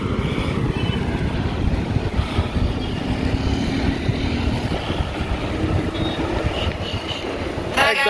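Wind rumbling on the microphone of a camera riding along on a moving bicycle, with road traffic in the background.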